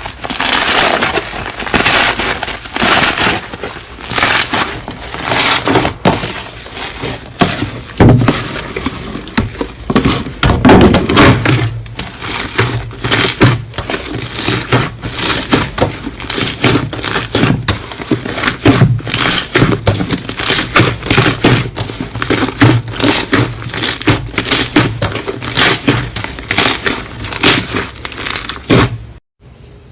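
Slime being squeezed and pressed by hand, giving a dense run of crackling crunches in quick repeated bursts. The sound breaks off abruptly just before the end.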